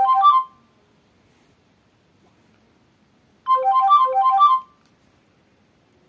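Nokia N95 loudspeaker playing a short synthesized ringtone: a quick run of bright notes that ends about half a second in, then plays again about three and a half seconds in for about a second.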